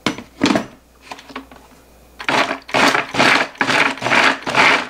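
Electric food chopper grinding red chillies and onion in flour paste into a seasoning purée, its motor and blades whirring in pulses about two to three times a second from about two seconds in. A single knock comes about half a second in, before the motor starts.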